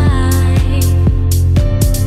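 Background pop music with a steady beat and a held sung note that bends down and fades just after the start.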